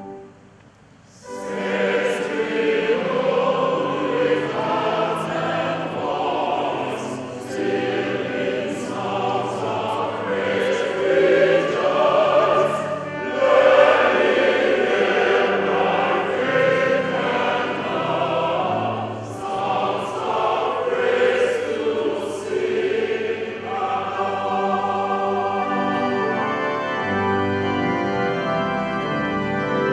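Church choir singing a hymn with many voices. About 24 s in, the voices drop away and steady held organ chords carry on alone.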